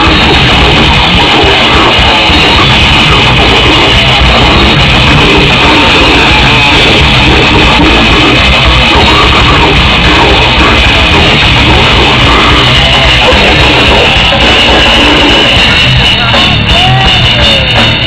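Live metal band playing very loud: distorted electric guitars and a drum kit, with a female vocalist growling.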